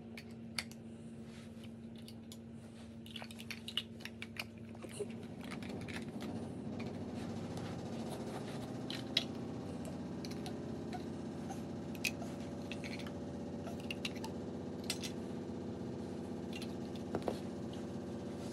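Large plastic toy building blocks clicking and clattering as a toddler picks them up and knocks them together, a scattering of sharp clicks. Under them runs a steady low hum that gets louder about five seconds in.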